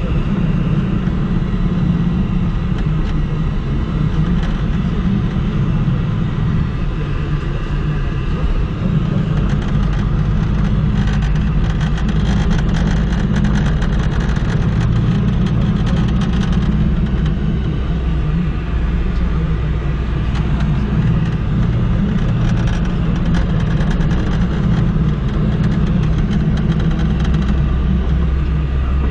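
Car engine and tyre noise heard from inside the cabin while driving along at a steady low speed: a continuous low rumble. Spells of faint fine crackle come and go through the middle.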